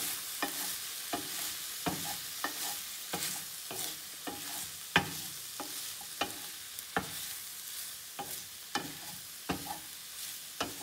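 Chicken, broccoli and carrots sizzling in a nonstick frying pan over low heat while a wooden spoon stirs them. The spoon knocks against the pan about once a second, with the loudest knock about halfway through.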